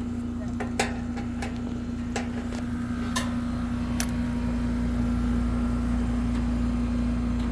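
Sharp metallic clicks and taps, five or six in the first four seconds, as the sheet-metal access door of an air-conditioning unit is gripped and worked loose. A steady hum runs underneath, and a low rumble grows in about halfway.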